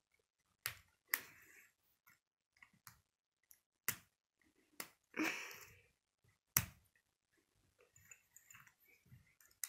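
K'nex plastic rods and connectors clicking as they are snapped together: about five sharp clicks spread over several seconds, with softer handling noise of the plastic parts between.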